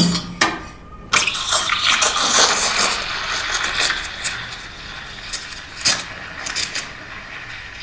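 La Marzocco Linea Mini steam wand steaming milk in a stainless steel pitcher. A couple of clicks come first, then about a second in the steam hiss starts, loud and crackling for a couple of seconds, before it settles into a quieter, steadier hiss with occasional pops as the milk is textured.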